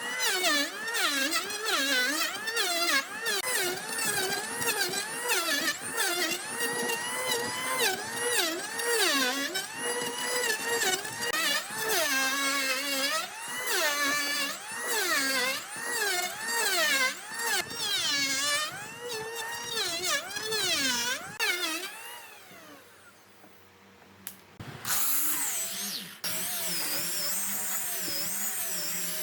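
A power tool's motor whining while working wood, its pitch dipping and rising over and over as the load changes. It dies away about 22 seconds in, and another tool starts running about 25 seconds in.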